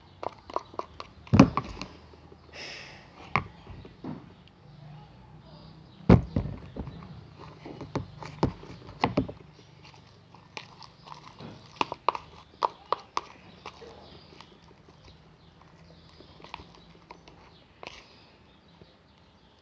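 A spoon stirring slime in a container while borax activator is worked in, giving irregular clacks and knocks. The loudest knocks come about a second and a half in and again around six seconds.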